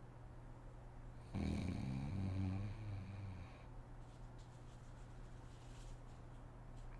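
A sleeping woman snoring: one low, rattling snore starts about a second in and lasts a little over two seconds.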